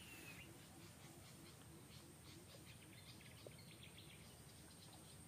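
Quiet forest ambience, near silence: a faint bird chirp near the start and soft chirping in the middle over a steady, thin, high insect-like whine.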